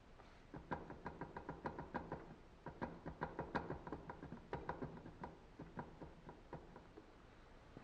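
Rear wheel of a Honda VTR1000 being rocked by hand, knocking with quick light clicks, several a second, in three bursts. The knocking is the loose play that the owner puts down to worn wheel bearings.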